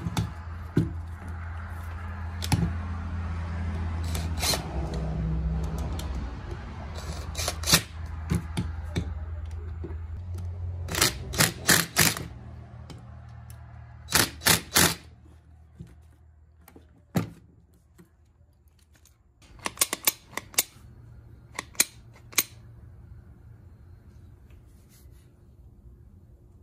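Sharp metallic clicks and clinks in short clusters, from hand tools and parts being handled while a starter motor is refitted. A low steady hum runs under the first half and then fades, leaving quieter room tone.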